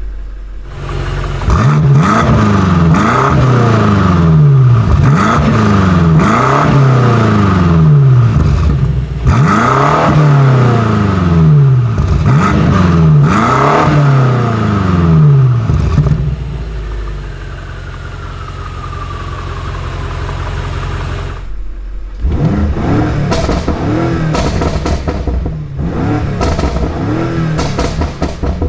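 BMW M5 Competition's twin-turbo V8 being revved hard while parked, with its exhaust valves open in Sport Plus. It gives a long series of quick throttle blips, each rising and falling in pitch, then settles back toward idle for several seconds. Near the end comes a run of shorter, smaller blips.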